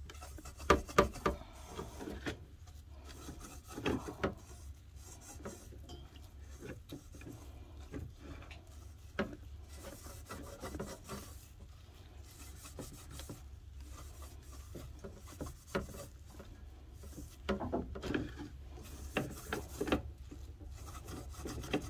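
Scrubbing inside a stainless steel saucepan with a little water: irregular rasping strokes against the pan's bottom, louder in a few spells. The rasp is the sound of food residue still stuck to the pan.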